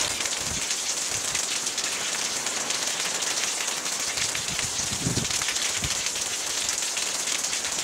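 Steady rain-like hiss throughout, with a few faint low knocks from handling.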